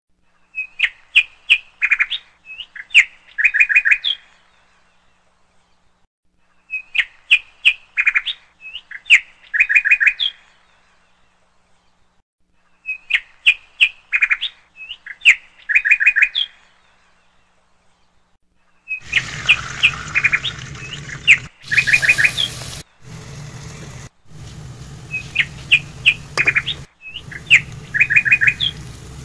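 A short phrase of high bird chirps, repeated the same way about every six seconds. About two-thirds of the way through, a steady sizzling hiss of onions frying in a pan comes in under it, cut off briefly a few times.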